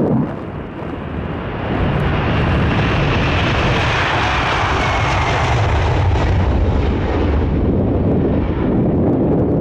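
Boeing 747-400F freighter arriving, its four jet engines a steady rushing noise that swells about a second and a half in and then holds. A faint whine drops slowly in pitch as it passes.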